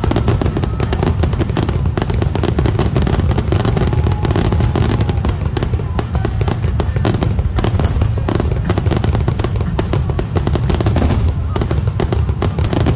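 Aerial fireworks going off in a dense, unbroken barrage: many shell bursts and crackles overlapping, booming and popping with hardly a gap.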